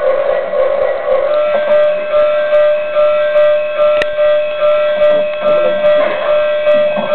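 An electronic toy sound: a steady held tone with higher beeping tones over it, pulsing about twice a second.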